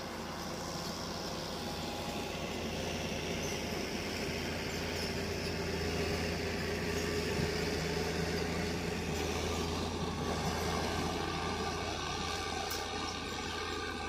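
Diesel engines of a crawler bulldozer and an excavator running steadily while the dozer works the earth, a continuous low drone.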